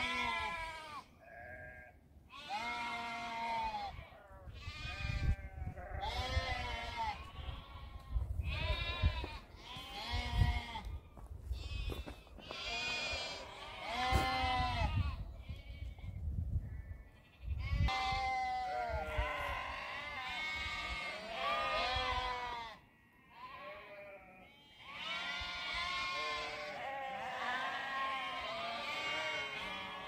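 A flock of sheep and goats bleating, many overlapping quavering calls one after another, with a short lull a little after the middle.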